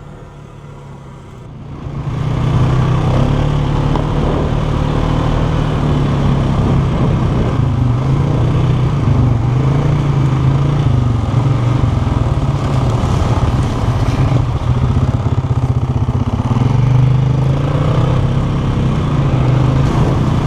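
Polaris 450 ATV engine running under way: quiet at first, then loud from about two seconds in, holding a steady note that rises and falls slightly with the throttle.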